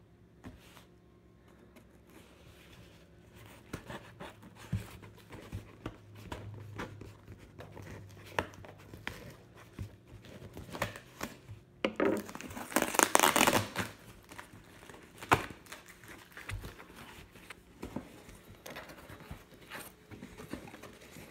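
Cardboard shipping box being opened by hand: packing tape slit and torn, flaps pulled back, with scattered scrapes, clicks and crinkles. About twelve seconds in, a louder tearing lasts about two seconds.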